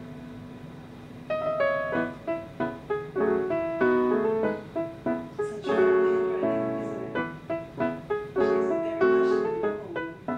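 Background piano music: a slow, gentle melody. A held chord fades out, then separate notes begin about a second and a half in.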